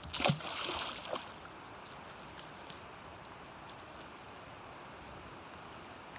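A splash of shallow river water lasting about a second, followed by the steady faint rush of the flowing river.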